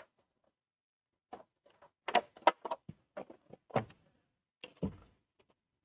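Handling noise of a 1/12-scale RC jeep model: a quick irregular series of light clicks and knocks, starting about a second in, as the model is moved and its parts touched.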